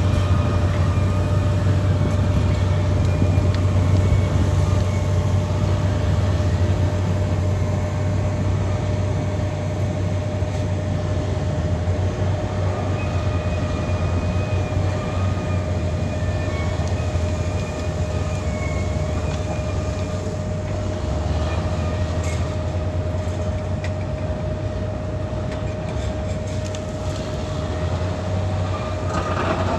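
Caterpillar D6R XL bulldozer's diesel engine running steadily, a low rumble with a constant whine held over it.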